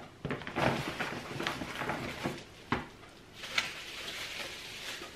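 Plastic bubble wrap crinkling and rustling as it is pulled out of a bag and unwrapped by hand: irregular crackles, busiest in the first three seconds or so, then softer handling.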